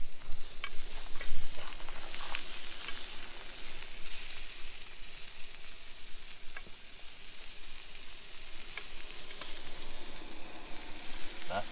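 Meat frying in a pan: a steady sizzling hiss with a few faint pops.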